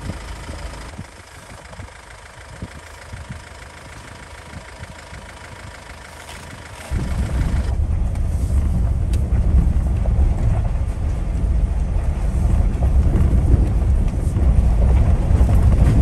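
SUV driving along a forest dirt track. It starts quieter, then from about seven seconds in a loud, steady low rumble of engine and road noise.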